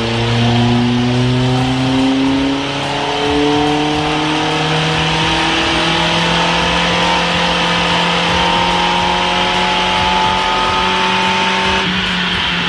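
1994 Geo's 1.8-litre 16-valve four-cylinder engine running at full throttle on a chassis dyno, stock with no nitrous, climbing slowly and steadily in pitch as it pulls up through the revs. Near the end the higher part of the sound drops away as the pull ends.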